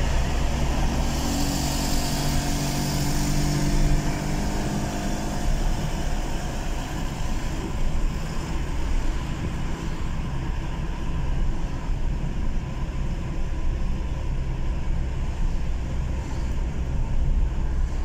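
Car driving at road speed, heard from inside the cabin: steady engine and tyre rumble. A pitched engine hum stands out for the first five seconds or so, then fades into the road noise.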